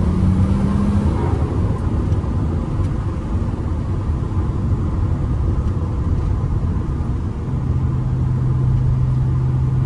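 1978 BMW Alpina B7 Turbo coupe's turbocharged straight-six running as the car drives along, over a steady road and tyre rumble. A held engine note fades out about a second in, and a lower steady engine note comes in near the end.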